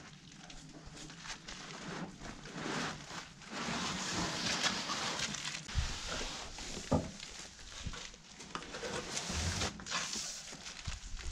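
A large cardboard box scraping and rustling as it is slid out of a pickup bed onto a hand truck, with a few sharp knocks about halfway through.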